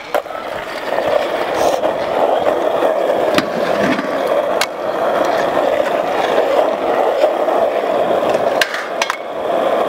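Freestyle stunt scooter's small hard wheels rolling over concrete, a steady rumbling hiss, broken by several sharp clacks of the scooter striking or landing on ledges, a couple of them close together near the end.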